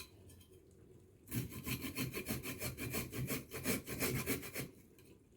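Fresh ginger being grated on a fine-hole hand grater: quick, repeated rasping strokes, several a second. They start about a second in and pause shortly before the end.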